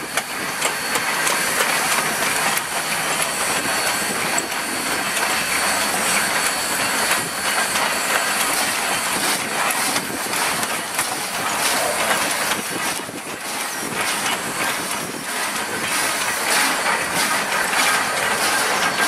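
1907 Baldwin 2-6-0 steam locomotive moving slowly past, with steam hissing and the wheels and running gear clattering over the rail joints.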